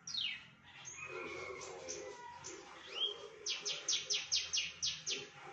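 Horsfield's bush lark (branjangan) singing a varied song. It opens with a quick falling sweep, then scattered chirps and a short rising whistle, then a fast run of repeated notes at about seven a second.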